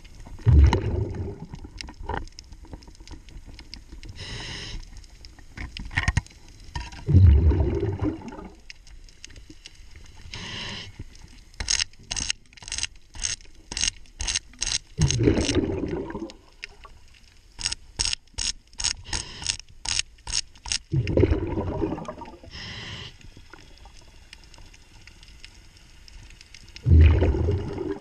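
Scuba diver breathing on a regulator: bubbling exhalations about every six seconds with fainter hissing inhalations between. In the middle come two runs of sharp clicks, about four a second, from the hex key and pliers working the bolt of a zinc anode.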